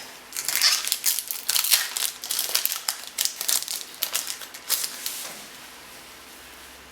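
Wrapper of a trading-card pack crinkling as it is handled and opened: a run of quick, dense crackles that stops about five seconds in.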